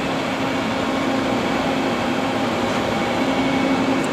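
Steady mechanical hum and whir of running machinery, with a low steady tone under an even rushing noise.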